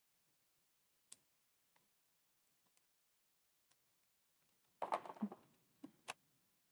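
Faint paper-craft handling: scattered small clicks and ticks as foam adhesive dimensionals are pulled off their sheet and pressed onto a cardstock strip, with a brief louder rustle of paper about five seconds in and two more clicks just after.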